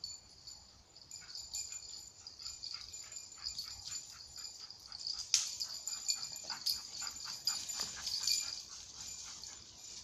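Airedale terrier giving a rapid series of short barks and yelps, with a few falling whines near the end.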